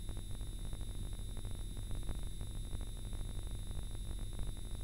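Low rumbling hum with dense fine crackling and faint steady high-pitched whines: background noise with no speech or clear music.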